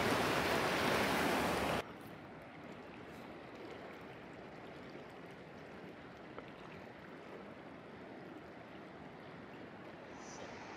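Rushing river water, loud for about the first two seconds, then dropping suddenly to a much quieter, steady rush of flowing water.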